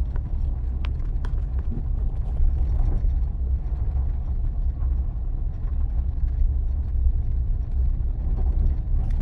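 Cabin noise of a 2017 Chevy Silverado's 5.3 V8 pickup on the road: a steady low rumble of engine and tyres, the engine running smoothly on all eight cylinders with its active fuel management disabled.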